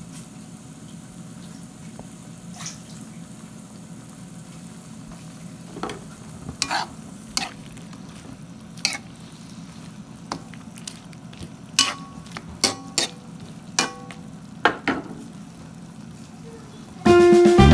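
Food frying in a pan with a steady low sizzle, and from about six seconds in a metal utensil clinking and scraping against the pan a dozen or so times while stirring. Music comes in near the end.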